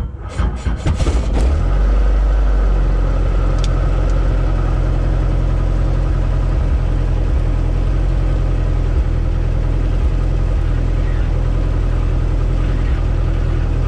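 Robinson R22 helicopter's four-cylinder Lycoming piston engine catching on start: it fires unevenly for the first second or two, then settles into a steady idle.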